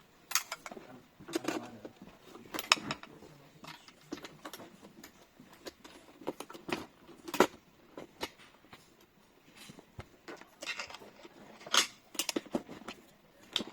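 Smart lock hardware being handled and fitted: scattered sharp clicks and knocks of metal and plastic parts, a few louder taps, irregularly spaced.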